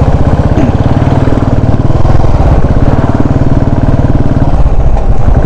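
Motorcycle engine running steadily while riding, heard from the saddle: a close, even run of firing pulses at a constant pitch.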